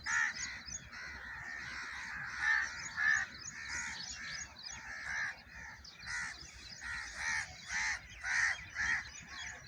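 Crows cawing over and over, with lighter chirping of other birds above them; in the second half the caws come evenly, about two a second.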